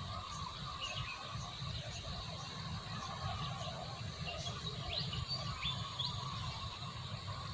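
Outdoor night ambience: steady chirring and short chirping calls from insects and other small creatures, with a few quick falling calls about five to six seconds in, over a low rumble.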